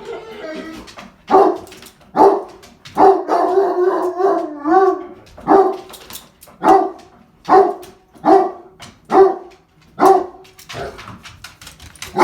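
A dog barking repeatedly, about one bark a second, with a drawn-out, wavering howl between the barks near the middle; excited greeting barks for arriving family.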